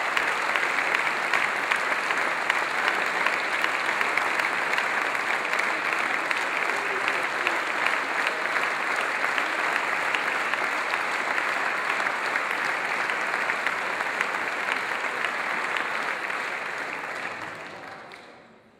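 Audience applauding: many hands clapping in a steady, dense round that fades out over the last couple of seconds.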